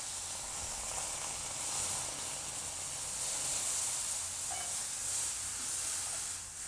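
Milk poured into a very hot steel kadai of freshly popped amaranth, hissing and sizzling steadily as it hits the hot metal and grains.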